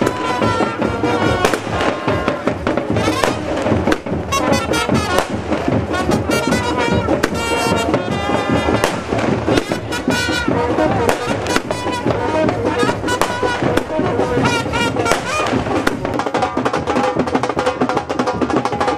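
Aerial fireworks crackling and bursting overhead in quick, repeated bangs, over loud music.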